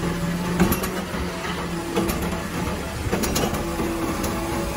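Automated side-loading garbage truck running while its hydraulic arm empties a wheeled trash cart into the hopper and lowers it back down. A steady hum rises and falls under a few sharp clanks from the cart and arm.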